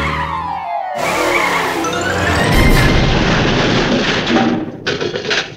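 Background music with cartoon sound effects: a tone that slides down in pitch over the first second, then one that slides up, with a loud low rumble about two and a half seconds in. The sound cuts off abruptly at the end.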